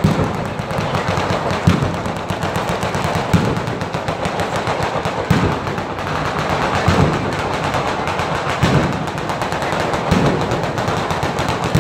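A ground-level firework batteria: a long chain of firecrackers going off in very rapid succession, a continuous rattling crackle, with heavier bangs about every second and a half.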